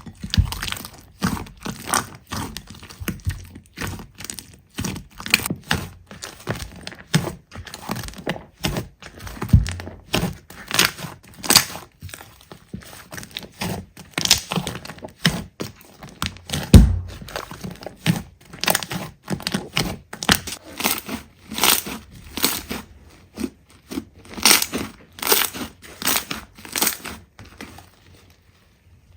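Slime being pressed and squished by hand, giving a dense, irregular run of crackles and pops with an occasional heavier thud, stopping shortly before the end.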